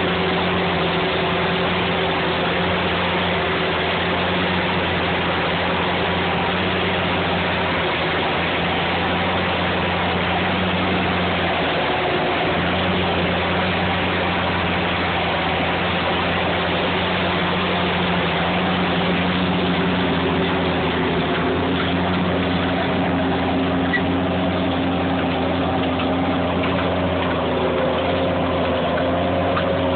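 Fendt 716 tractor's six-cylinder diesel engine running steadily under load, pulling a cultivator through clay soil, over a continuous rushing noise. The engine note shifts slightly a few times in the second half.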